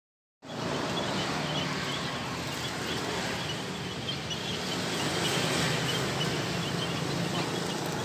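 A flock of small caged finches giving short, high chirps scattered over a steady, noisy outdoor background with a low hum.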